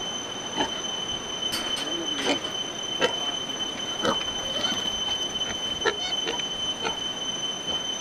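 Pigs grunting and giving short squeals in their pens, over a steady high-pitched whine.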